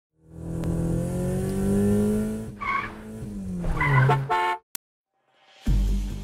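Car sound effects: an engine revs, rising and then falling in pitch, tyres squeal twice, and a short horn honk, then the sound cuts off suddenly. After about a second of silence comes a deep low boom.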